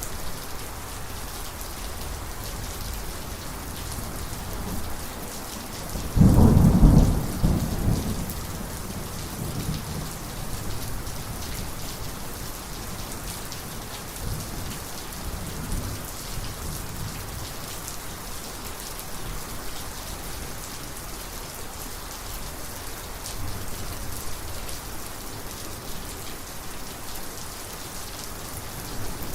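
Steady rain falling through a thunderstorm, with a loud thunderclap about six seconds in that rumbles off over the next few seconds, and fainter rumbles of thunder later on.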